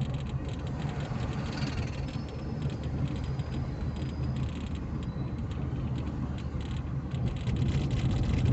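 Steady engine and road noise of a car driving along a city street, heard from inside the cabin, with a low hum underneath.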